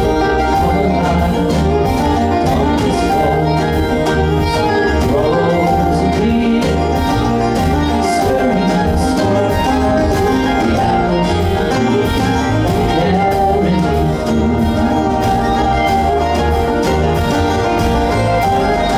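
Live acoustic string band playing an up-tempo bluegrass-style tune: strummed acoustic guitar, picked banjo, fiddle, mandolin and upright bass together, with a steady driving rhythm.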